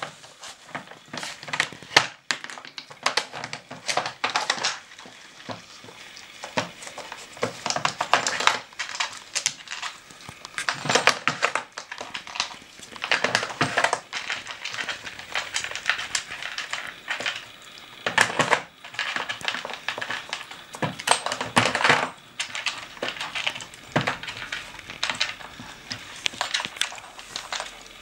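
A dog working a plastic treat puzzle: irregular clacking and scraping of the plastic covers under its paws and nose, in short bursts every second or two.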